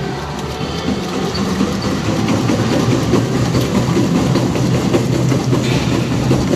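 A treadmill rumbling and clattering under a sprinting runner, getting louder over the first few seconds as the pace builds.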